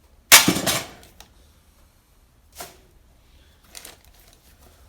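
Household items being handled while a box is unpacked: a loud clatter about a third of a second in that dies away quickly, then a few light knocks and rustles.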